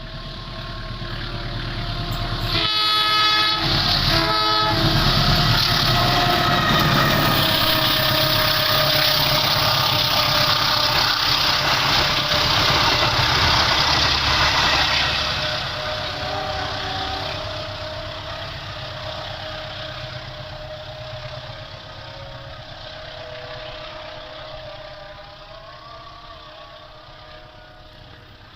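A train approaches and passes close by, its locomotive horn sounding two short blasts about three seconds in. The loud rumble of the passing cars carries steady high tones over it, then fades away over the second half.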